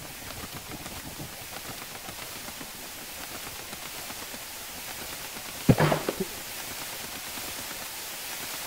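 A steady rushing hiss of wind, a falling sound effect, broken a little past halfway by one short, louder sound.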